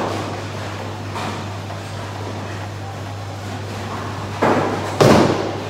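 A bowling ball released onto the wooden lane, landing with a sudden loud thud about five seconds in and starting to roll, over the steady hum and clatter of a bowling alley.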